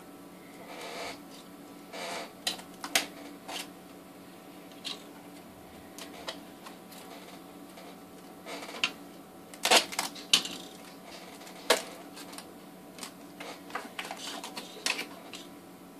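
Handling of small plastic spider containers and long tweezers: scattered, irregular clicks, taps and scuffs, with a cluster of the sharpest knocks about ten seconds in.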